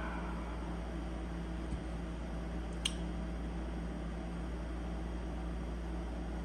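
Steady room hum with a single sharp click about three seconds in, from a balisong knife being handled.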